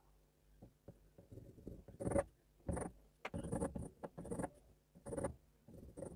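Graphite pencil drawing on paper: a few faint taps, then from about two seconds in a run of short scratching strokes as the lines are laid down.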